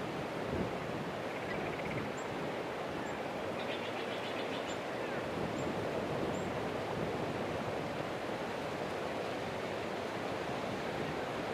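Steady outdoor rush of wind in a pine forest, with about five short high bird chirps and a couple of brief trills in the middle.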